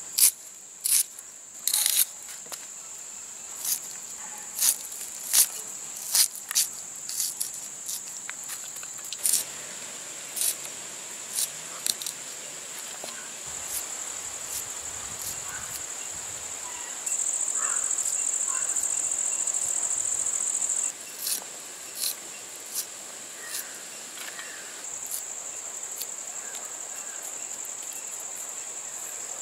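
Red onion being cut against a large curved blade: crisp, sharp cuts, about one a second at first and sparser later. Under them runs a steady high insect trill that grows louder for a few seconds in the middle.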